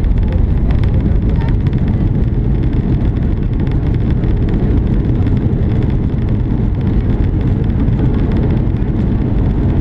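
Boeing 737-800 rolling out on the runway after touchdown, heard from inside the cabin: a loud, steady low rumble of the landing roll.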